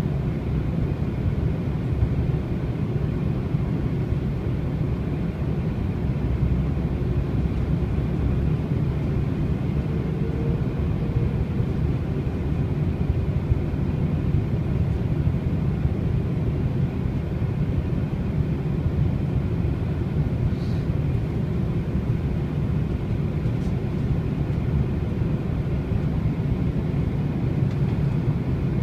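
Steady low rumble inside a jet airliner's cabin in flight: engine and airflow noise, even and unbroken.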